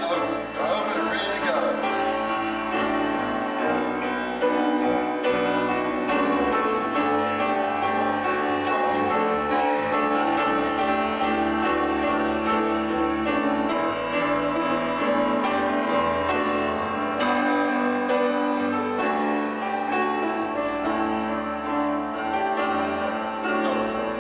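Slow worship music with sustained keyboard and piano chords.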